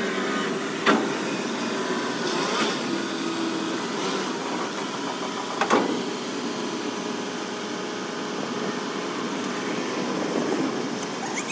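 Heavy diesel engine of a Volvo A40G articulated dump truck running steadily, with a sharp clank about a second in and another near six seconds in.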